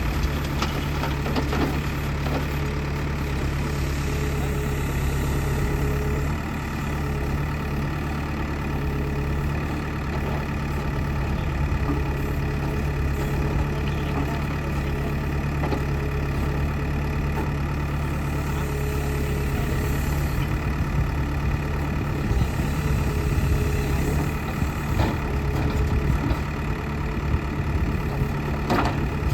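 Backhoe loader's diesel engine running steadily with a low, even hum.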